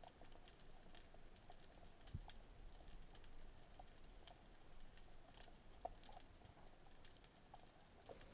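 Faint underwater ambience recorded through a camera housing: scattered soft clicks and crackles, the kind of reef crackle that snapping shrimp make, with a soft knock about two seconds in.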